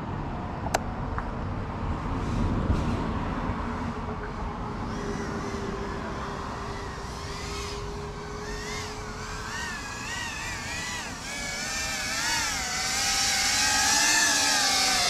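Small FPV quadcopter's motors and propellers whining, the pitch wobbling up and down as the throttle is worked, growing louder toward the end.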